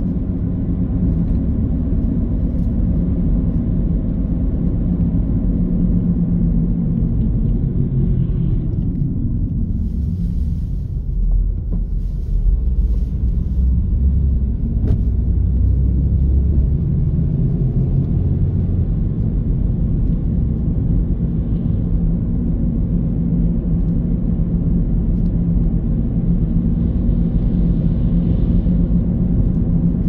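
Car driving: a steady low engine and tyre rumble that eases off briefly about eleven seconds in, then picks up again.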